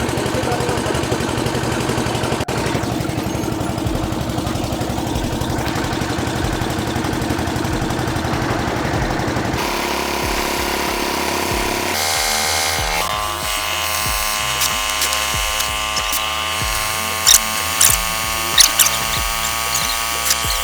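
A small engine or machine running steadily with a fast, even pulse for about the first ten seconds. Then background music with a beat takes over.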